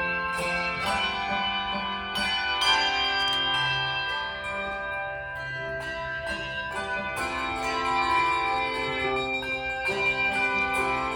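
Handbells playing a tune: struck notes at many pitches, each ringing on and overlapping the next.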